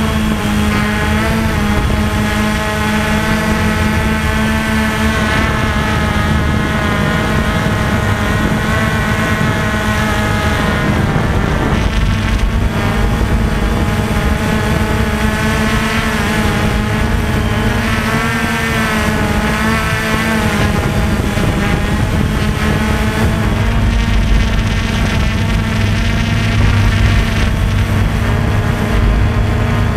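V303 quadcopter's motors and propellers whining steadily as it flies, heard close up on its onboard camera's microphone. The stacked whine wavers up and down in pitch as the motor speeds shift to hold the drone in the air.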